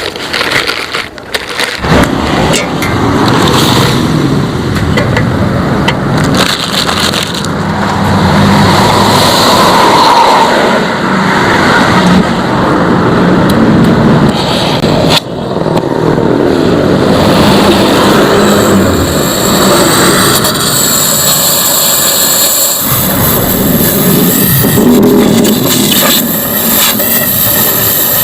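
Power grinder working on a steel motorcycle exhaust pipe, running loud and steady with a high whine, briefly easing off a few times.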